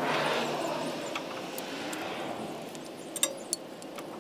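A passing vehicle's rushing noise swells at the start and fades out over about two seconds. Then, about three seconds in, come a few sharp metallic clicks: a new brake pad being seated into the clips of a rear disc-brake caliper bracket.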